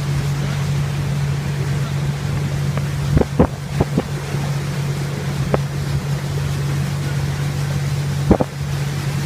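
Motorboat engine running with a steady low hum, with wind buffeting the microphone and a few short knocks about three seconds in and again near the end.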